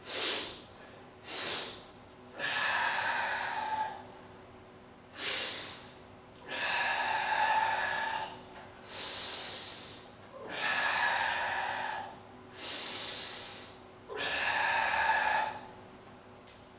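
A man breathing loudly and forcefully while stretching. There are a few short, sharp breaths and six long, drawn-out exhalations of a second or two each, evenly paced, over a faint steady hum.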